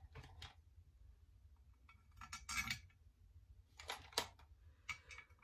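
Small metal clicks and clinks as a rifle handguard and its screws are handled during assembly: a few light clicks at the start, a short cluster about two and a half seconds in, and two more near the end.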